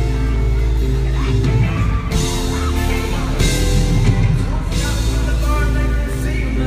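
A live band playing, heard from the audience: a male lead vocal sung through a handheld microphone over heavy sustained bass, keyboard and drums with cymbal hits.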